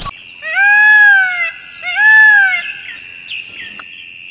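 Two clear animal calls, each about a second long and rising then falling in pitch, over a steady high-pitched insect drone.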